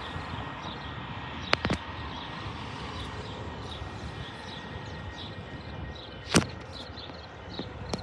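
Steady outdoor background noise from traffic and wind, broken by two sharp knocks about a second and a half in and a louder knock past the six-second mark. A faint high chirping repeats a few times a second through the second half.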